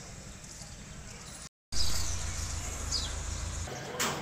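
Outdoor background noise with a steady low rumble. It cuts out completely for a moment about one and a half seconds in and comes back louder. A short falling bird chirp sounds near three seconds, and a sharp click near the end.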